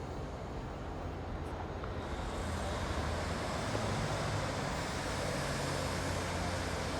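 A train running at the station: a steady low engine hum, with a rushing noise that builds about two seconds in and stays louder.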